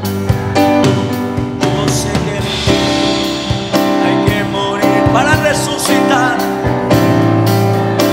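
Live worship band music playing between sung lines: a drum kit keeps a steady beat under sustained chords and bass.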